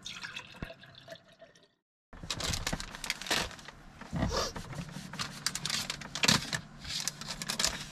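Heavy rain falling: a dense hiss with irregular louder taps. It starts abruptly about two seconds in, after a few faint clicks.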